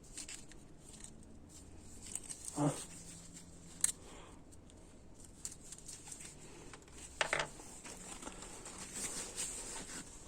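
Faint scattered clicks and light handling noise from work on a transmission input shaft as its Teflon split seals are taken off, with a sharp click about four seconds in and two short louder sounds, one a third of the way through and one near two-thirds.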